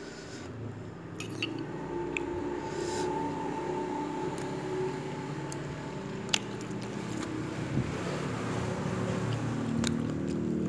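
A motor vehicle's engine running and getting gradually louder as it approaches. A few sharp clinks of a metal fork and spoon against the bowl, the loudest about six seconds in.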